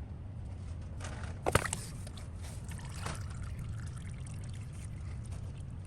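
Old engine oil draining in a steady pour from a Ford F-250's oil pan into a drain pan after the drain nut and filter have been removed. A couple of sharp knocks come about one and a half seconds in.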